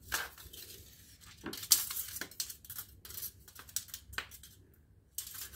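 Fingernails picking and scratching at double-sided tape to lift its paper backing, with short crackling tears of the paper, loudest about a second and a half in. Light clicks as the thin iron-cobalt magnetostrictive strip is handled.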